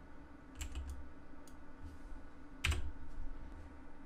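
Computer keyboard and mouse clicks: a few light clicks in the first second and a louder click nearly three seconds in, over a faint steady hum.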